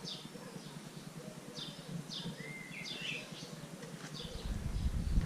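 Small birds chirping in short repeated calls, with one longer whistled note about halfway through. About four seconds in, a low rumble starts under the chirps and gets louder.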